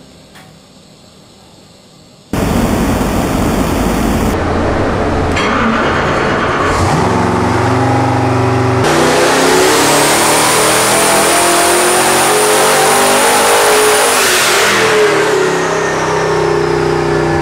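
Twin-turbo 427 cubic inch small-block Chevy V8 running on an engine dyno. It comes in loud about two seconds in and climbs in revs through a long full-throttle pull, with a high turbo whistle rising over it. Near the end the revs fall away as the pull ends.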